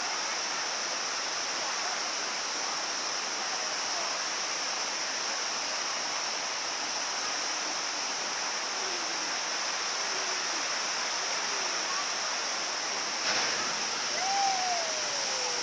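Waterfall's steady rush of falling water, even and unbroken, with faint distant voices calling now and then in the second half and a short knock about thirteen seconds in.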